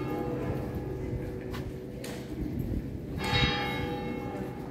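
Large bell tolling slowly: one strike about three seconds in, ringing out and fading, with the ring of the previous stroke still humming before it.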